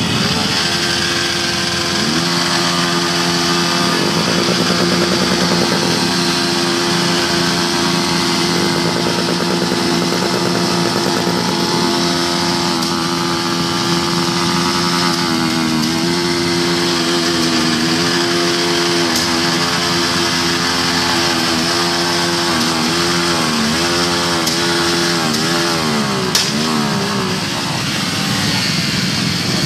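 Many small motorcycles riding together in a slow procession, with one nearby engine running at an even pitch that wavers up and down with throttle changes in the second half. A single sharp click comes near the end.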